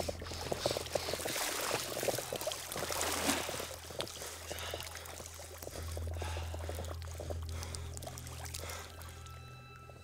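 Creek water splashing and sloshing, strongest in the first half, as a body moves through a shallow stream, over a low steady drone. Faint sustained music notes come in near the end.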